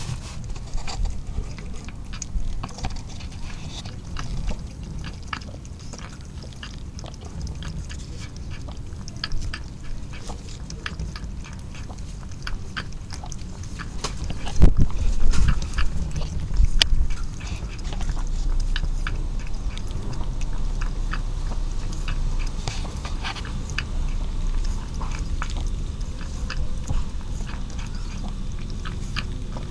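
Calico cat lapping milk from a plastic bowl: a fast run of small wet clicks from its tongue, going on steadily. A few louder low bumps about halfway through, then a low rumble underneath.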